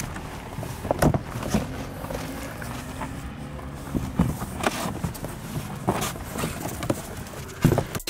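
Large cardboard moving box being handled: irregular knocks, thumps and scraping of cardboard as a person settles inside it and it is shut and set on a hand truck.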